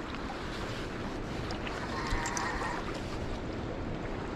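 Steady rushing of a fast-flowing river, with some wind on the microphone.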